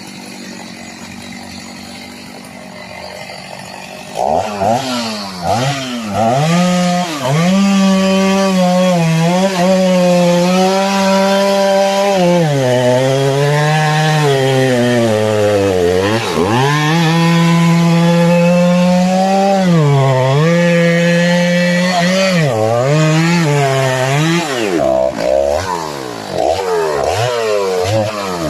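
Two-stroke chainsaw cutting sengon wood. It idles quietly for the first few seconds, then runs at full throttle from about four seconds in. Its pitch sags under the load of the cut and picks up again, and it drops sharply several times when the throttle is eased.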